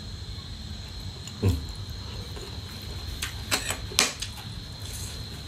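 A metal spoon tapping and clicking against a ceramic plate a few times while eating, with a dull knock about a second and a half in and the sharpest click about four seconds in. A faint steady high tone runs underneath.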